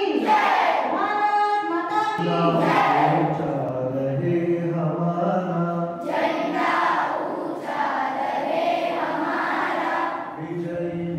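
A group of schoolchildren and adults singing together in chorus, continuous without a break.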